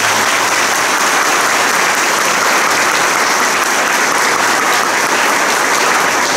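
Congregation and the standing group applauding: a steady round of hand clapping.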